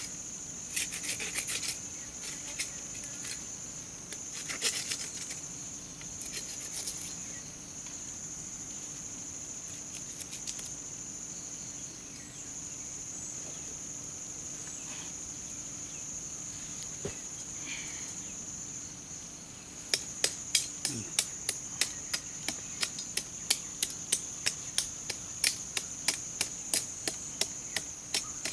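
A curved chopping knife striking the soil around an elephant foot yam in quick, even blows, about three a second, starting about two-thirds of the way in, after a few scattered scrapes of hand digging. A steady high insect drone runs underneath throughout.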